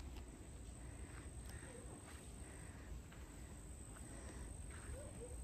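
Quiet outdoor background noise: a low rumble, a steady high-pitched whine, and a few faint short chirps, about two seconds in and again near the end.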